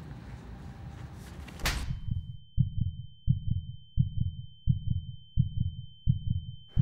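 Outdoor background noise ends in one sharp hit about a second and a half in. Then the background falls away, leaving a film sound effect of a heartbeat, slow double thumps about every 0.7 s, under a steady high-pitched ear-ringing tone: the sound of someone stunned by a blow.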